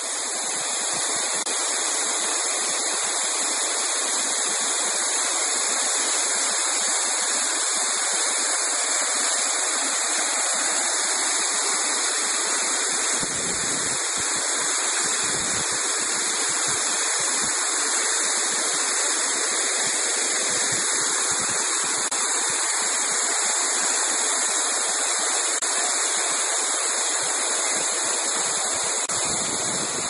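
Waterfall: water pouring and splashing down rock slabs close to the microphone, a steady, loud rush.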